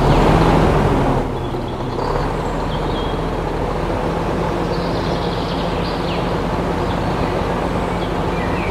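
A small motor running steadily, a loud even hum with a noisy edge, a little louder for about the first second.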